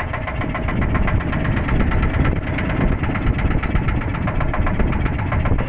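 Motorboat engine running steadily with a fast, even chugging.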